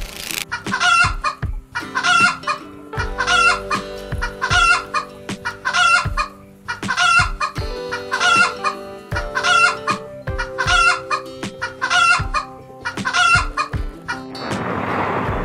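Domestic fowl calling in a steady series, about a dozen short calls roughly one a second, over background music with sustained low notes. The calls stop shortly before the end and give way to a rushing noise.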